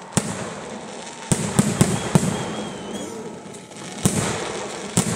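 Kerala temple fireworks (vedikettu) going off: sharp, irregular bangs over a continuous crackling hiss of rockets and fountains. A quick cluster of bangs comes a little over a second in, with single bangs again at about four seconds and near the end.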